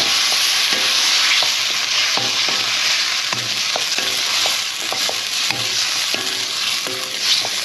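Chicken pieces in Madras sauce sizzling in a hot non-stick wok while a wooden spatula stirs and pushes them around. There is a steady frying hiss, broken by small knocks and scrapes of the spatula against the pan.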